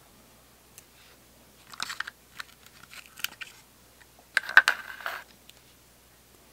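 Small metal watercolour tubes and their cardboard set box being handled: sharp clicks and short scraping rustles as a tube goes back into the box and another is pulled out. One small cluster comes about two seconds in, and the loudest comes about four and a half seconds in.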